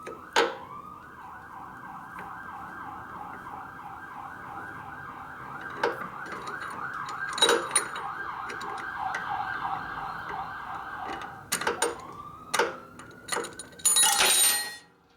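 Emergency vehicle siren in a fast yelp, its pitch sweeping up and down several times a second, changing near the end to a slower rising wail. A few sharp clanks and a brief loud rush of noise near the end.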